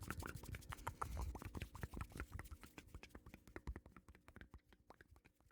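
Rapid, soft clicking and tapping, many light clicks a second, dying away toward the end.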